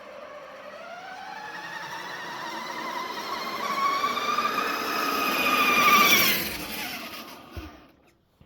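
Electric drive motor and gearing of a 1:10 scale 3D-printed MAN KAT1 model truck whining, rising in pitch and getting louder over the first few seconds, then falling and dying away near the end. The motor is overtaxed by the truck, which the owner says made it smoke.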